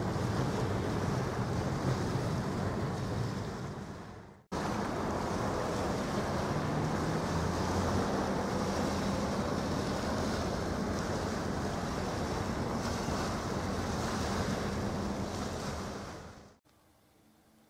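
Outdoor shoreline ambience: wind on the microphone and small waves washing on the beach, with a low steady hum underneath. It fades out and cuts back in about four seconds in, then fades away near the end.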